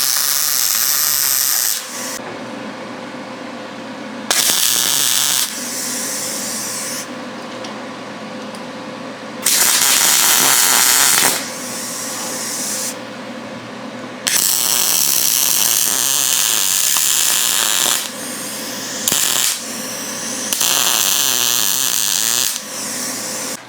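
MIG welder with shielding gas welding casters onto steel legs, sizzling and crackling in about six bursts of one to four seconds each, with a quieter steady hum between welds.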